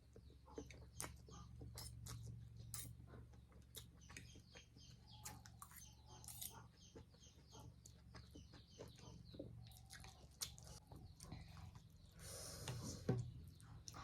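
Faint close-up eating sounds: a person chewing, with scattered light clicks and crackles and a louder breathy rush near the end. A steady low hum runs underneath.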